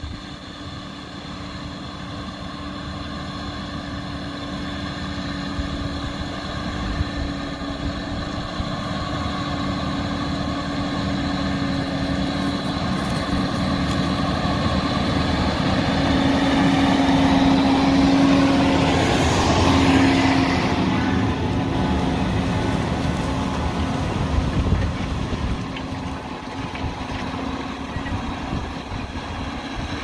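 John Deere tractor engine working hard under the load of a plough in the ground, running steadily. It grows louder as it comes near, is loudest about two-thirds of the way through, then fades as it pulls away.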